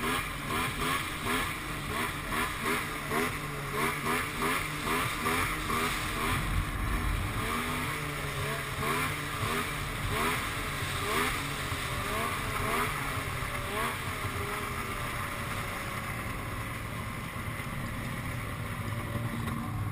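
Snowmobile engine running under way, heard from the rider's own sled, its pitch wavering and its loudness pulsing about twice a second in the first several seconds. It then runs steadier and eases off toward the end as the sled slows.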